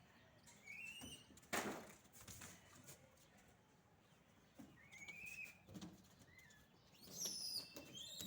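Scattered short, rising animal chirps with a sharp noisy thump about a second and a half in.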